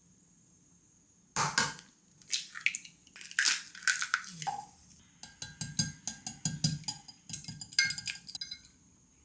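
Kitchen clatter of handled dishes and utensils. A few sharp knocks and clinks start about a second in, then a quick run of rapid clicks follows, which stops shortly before the end.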